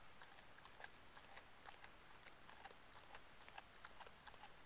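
Labrador retriever chewing a whole raw fish: faint, irregular crunches and clicks of teeth on the fish, several a second.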